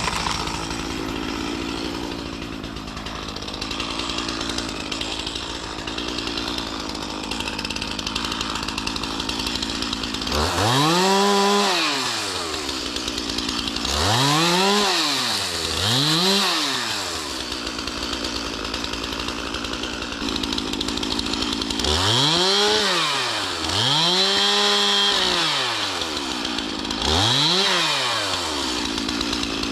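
Stihl MS 311 two-stroke chainsaw running throughout, revved up six times, each time rising and then falling back in pitch, while cutting small storm-downed trees and branches at the base.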